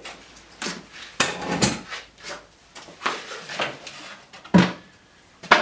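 Shop clatter: a string of separate knocks and clunks, from the table saw's rip fence being set aside and the wooden crosscut sled being picked up. The heaviest, deepest thump comes about four and a half seconds in.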